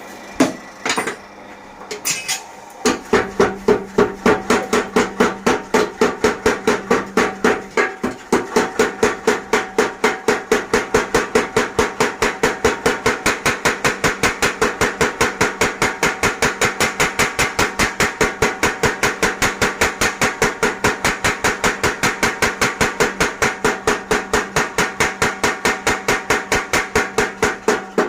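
Mechanical power hammer pounding a piece of leaf-spring steel in a steady rapid rhythm, about three to four blows a second. A few separate knocks come first, then continuous hammering from about three seconds in.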